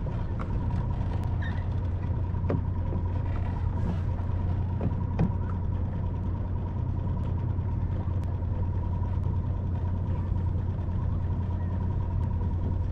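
Small 2.5 hp outboard motor on a kayak running at a steady speed: an even low drone with a faint steady whine above it, and a few light knocks.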